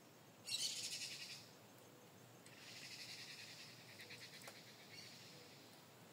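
A small animal's high, rapidly pulsed trill, heard twice: a short, sudden burst about half a second in, then a longer, fainter one lasting about three seconds.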